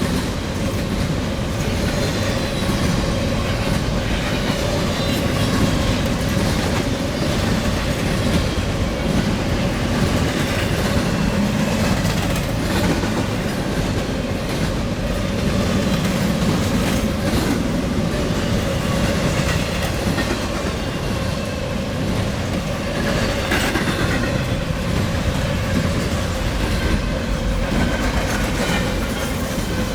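Freight train cars rolling past: a steady, loud rumble of steel wheels on rail, with a thin, steady whine held throughout.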